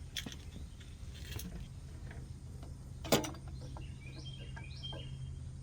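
Light clicks and taps of the plastic carburetor and its throttle linkage being worked off a Briggs & Stratton E450 mower engine by hand, with one sharper knock about three seconds in.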